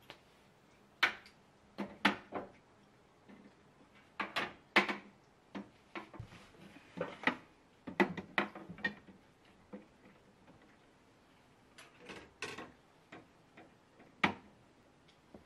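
A plastic hook being handled and fitted onto the edge of a kitchen cabinet door: a dozen or more sharp clicks and taps at irregular intervals, with knocks from the cabinet and the utensils beside it.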